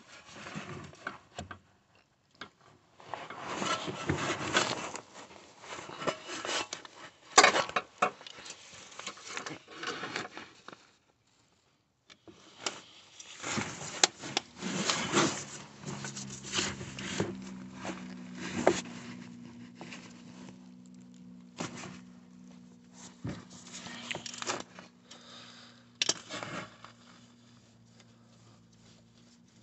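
Hand tools working on a driveshaft's M10 spline bolts: a spline bit on a long extension is tapped in and turned, giving scraping and rubbing with several sharp metal clicks and knocks. A steady low hum comes in about halfway through.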